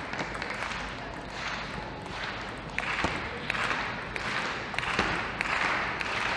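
Table tennis rally: the small ball clicking off the bats and the table at an uneven pace, a single sharp tick each time, over a steady hiss of hall noise.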